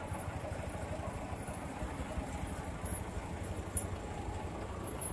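Truck engine idling steadily with a low, rapid rumble.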